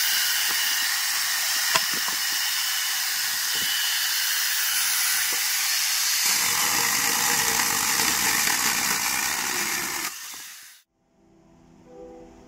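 Angle grinder fitted with a small chainsaw attachment running and cutting through firewood logs, a loud, hissy whine with fuller, lower noise from about halfway. The saw cuts off suddenly a couple of seconds before the end, and faint piano music begins.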